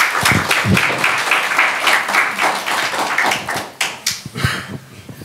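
Small audience applauding with many overlapping hand claps, dying away about four and a half seconds in.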